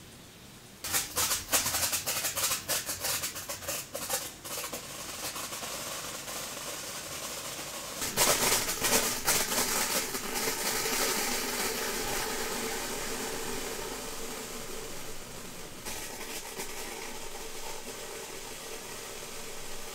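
Japanese senko hanabi sparkler crackling as its glowing bead throws branching sparks: dense bursts of sharp crackles start about a second in, ease into a steady hiss, come thick again about eight seconds in, then settle back to a steady hiss.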